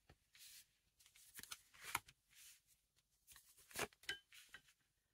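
Tarot cards being handled: faint, irregular papery swishes and flicks as the deck is shuffled and cards are drawn.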